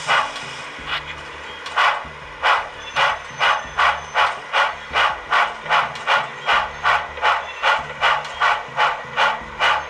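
Sound decoder in an HO-scale steam locomotive, heard through the model's speaker, playing steam exhaust chuffs as the engine pulls away from a stop. The chuffs start about a second apart and quicken to about three a second as it gathers speed.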